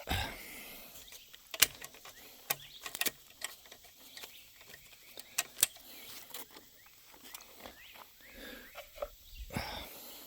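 Irregular footsteps with small knocks and clicks of things being handled and carried, over faint outdoor background noise.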